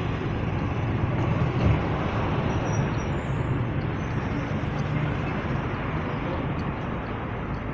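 Steady room noise of a large hall: a low hum under an even hiss, with no distinct sounds standing out.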